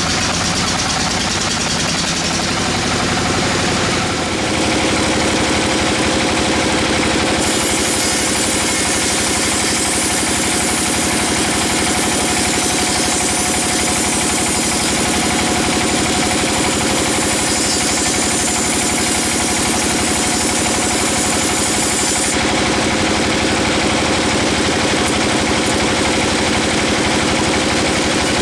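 Sawmill bandsaw machine running steadily with a continuous engine-like hum. A higher hiss joins from about seven seconds in and stops about twenty-two seconds in.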